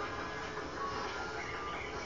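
Faint background music from a television soundtrack, with a few steady held tones.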